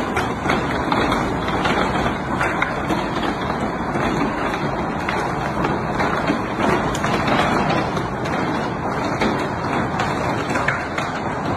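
Heavy hail pelting down, a dense steady clatter of countless small impacts blending into a continuous roar.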